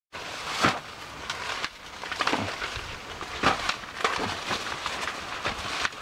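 Dry corn stalks and leaves rustling and crackling in irregular bursts, about one every second, as the plants are handled during a hand harvest.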